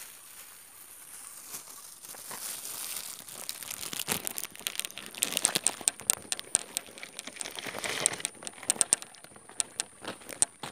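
Plastic crinkling and crackling as it is handled, with a noisy rustle building up and then many sharp crackles from about four seconds in.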